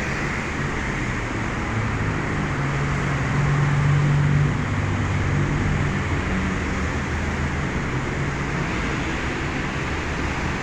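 Steady hiss of heavy rain, with a road vehicle passing through it: its low hum swells about two seconds in, is loudest around four seconds, and fades away by about nine seconds.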